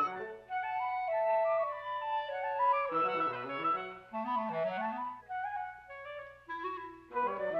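Soundtrack music: woodwinds playing a melody that moves up and down in steps, in several parts over a low held note, with a short break near the end before a new phrase.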